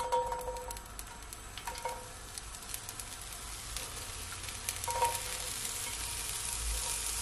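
Diced onion dropped into hot oil in a cast-iron skillet, sizzling and crackling with many small pops. The sizzle thickens and grows a little louder toward the end. A few brief ringing tones sound near the start, about two seconds in and about five seconds in.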